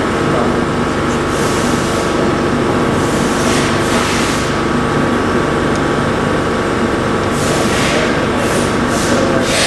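LarsLap Model C1 valve grinder running while grinding a gasket seat in a safety valve's bore: a steady motor hum with several short bursts of hiss.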